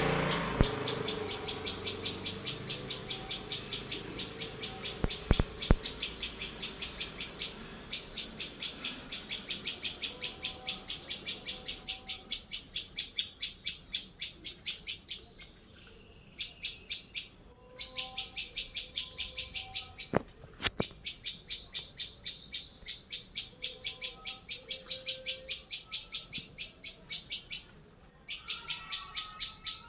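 A bird calling with rapid, evenly repeated high chirps, several a second, broken by two short pauses. Two pairs of sharp clicks come through, about five seconds in and again about twenty seconds in.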